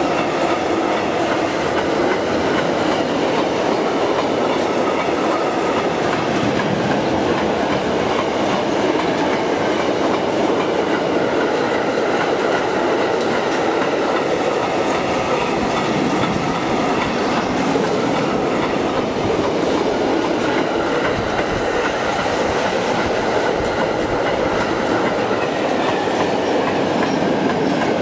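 Freight train of double-deck car-carrier wagons rolling past: a loud, steady rumble and clatter of steel wheels on the rails, with faint high steady tones ringing over it.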